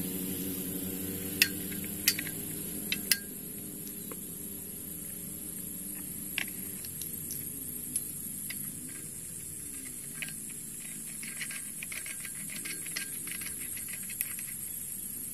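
Short sharp clicks and taps as a new Tanika brush-cutter blade is handled and worked out of its cardboard packaging, several in the first three seconds and a few more later. Behind them runs a steady high hiss and a low hum that wavers in pitch.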